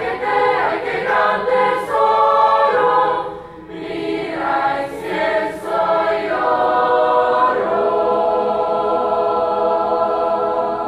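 Mixed choir of young men and women singing together, moving through several phrases and then holding one long final chord, which is released right at the end.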